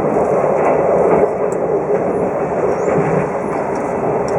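Running noise of a 24-series sleeper coach heard from inside: a steady rumble of wheels on rail while the train travels at speed.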